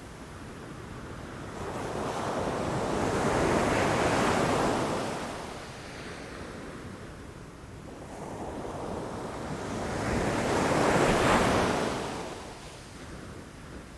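Ocean waves crashing against rocks: two swells of surf, the first building to a peak about four seconds in, the second about eleven seconds in, each washing back and fading between them. A little wind noise on the microphone.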